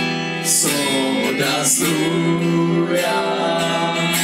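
Live band music: guitar and keyboard playing a song.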